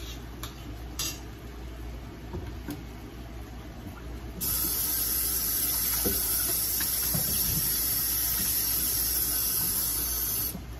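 A few light utensil knocks, then water running steadily from a kitchen tap for about six seconds, starting and stopping abruptly.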